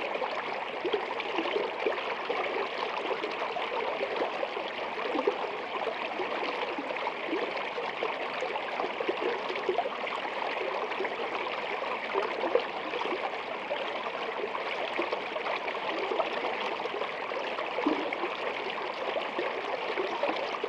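Steady babbling and trickling of a shallow stream of water running beneath a sheet of ice, with small gurgles throughout.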